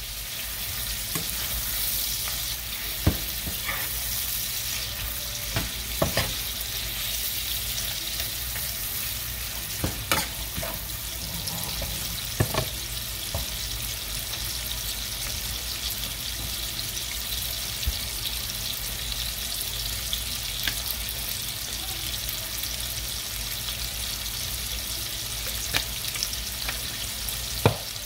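Salted fish, onions and sweet peppers sizzling in a skillet with a steady hiss. A few sharp knocks of the metal spoon against the pan come as it is stirred.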